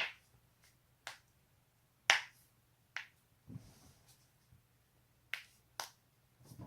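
Joints cracking: a run of sharp single pops about a second apart, the loudest about two seconds in.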